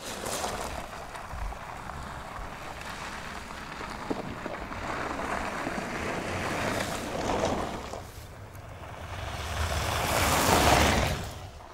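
Skoda Kodiaq SUV driving along a dirt off-road track, its passing noise swelling twice and loudest near the end, with wind rumbling on the microphone.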